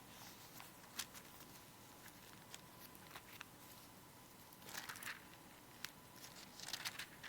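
Faint rustling of paper pages being leafed through, looking up a Bible passage, over quiet room tone. There are a few soft clicks, and the rustle comes in two short spells, one about five seconds in and one near the end.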